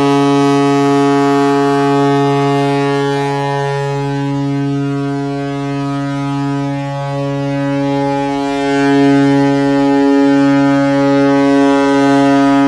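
Container ship Songa Iridium's horn sounding a long, steady, low blast with strong overtones: the danger signal of a ship drifting out of control after its rudder locked.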